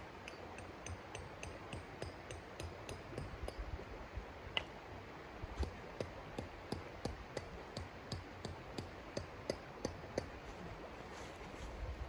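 A tent stake being hammered in: quick repeated metallic strikes, about four a second, with several harder blows between about four and ten seconds in, over the steady rush of a flowing river.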